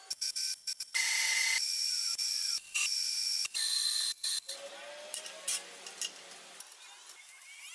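Short, abruptly edited bursts of MIG welding hiss and crackle as a steel rod is welded to a flat steel bar. Clicks mark the cuts between them, and a quieter stretch of metal handling with a rising whine follows near the end.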